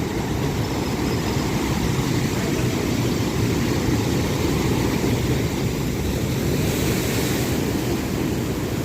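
Ocean surf breaking against the shore as a steady low wash of water, with a brief hiss of spray about seven seconds in.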